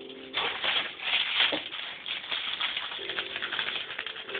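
Foil crinkle ball crackling and rustling as a ferret pushes it and grabs it in its mouth. The crackling starts a moment in and goes on in quick, uneven bursts.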